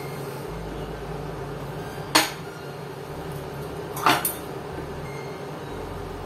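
Two short sharp knocks of small objects being handled and set down on a wooden desk, about two seconds apart, the second followed by a quick rattle, over a steady low hum.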